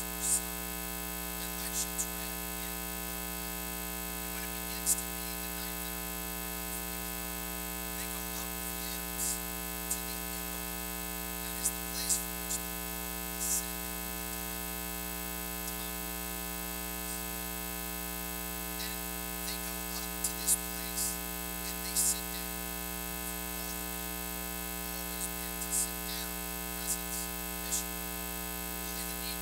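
Steady electrical mains hum with many evenly spaced overtones, broken by scattered short, high-pitched crackles.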